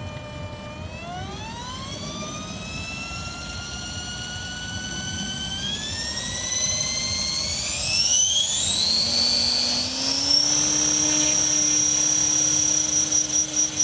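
Radio-controlled model helicopter spooling up on the ground. Its motor whine climbs in pitch in stages, then about ten seconds in settles into a steady high whine with a lower steady rotor tone.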